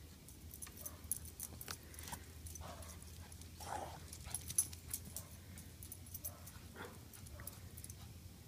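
Small white dog making short whimpering sounds, several times, over many light high clicks in the first half.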